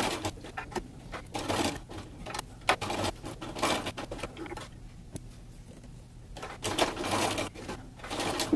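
Bernina sewing machine stitching Velcro onto cotton fabric in runs, with sharp clicks, stopping about five seconds in and starting again a second and a half later.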